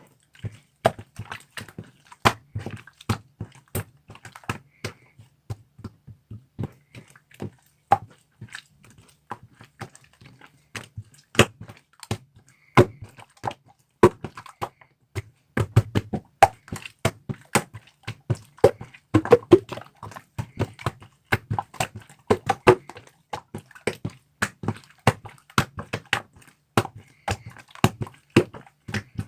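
Irregular series of small taps and clicks, several a second, some with a dull knock, over a faint steady hum.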